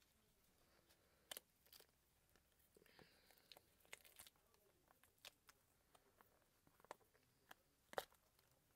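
Faint, scattered clicks and crackles of a silicone mould being flexed and peeled away from a cured polyurethane resin cat figure, with the sharpest snap near the end.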